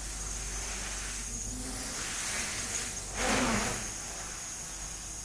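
Quadrocopter propellers whirring as two small drones hover and manoeuvre, with a steady high whine over the buzz. About three seconds in, the rotor noise swells briefly as the motors work harder, then settles again.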